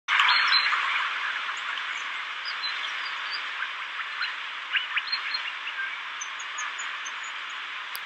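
Birds chirping: scattered short chirps and calls over a steady background hiss, which is loudest at the start and eases off over the first couple of seconds.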